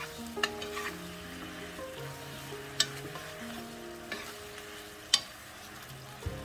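Food sizzling in a frying pan, with a few sharp clicks of a utensil against the pan, the loudest about three seconds in and again about five seconds in. Soft background music plays underneath.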